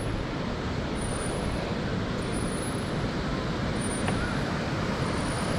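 Steady rushing noise of wind buffeting the microphone and bicycle tyres rolling on an asphalt path while riding.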